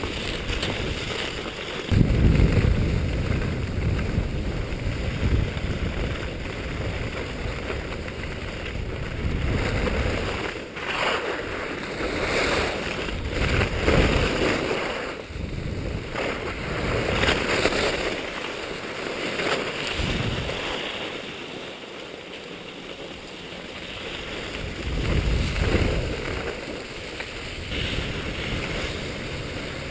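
Wind buffeting an action camera's microphone during a downhill ski run, mixed with skis hissing and scraping over hard-packed snow. The rush surges and eases with speed.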